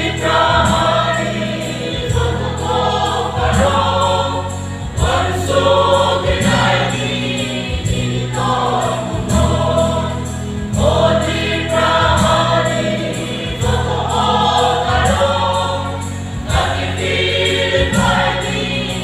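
Mixed choir of men and women singing a gospel hymn into stage microphones, in phrases of a few seconds each, over held low notes of an accompaniment.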